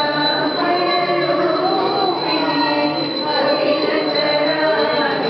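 Many voices talking at once in a crowded hall, mixed with music or chanting, over a steady high-pitched whine.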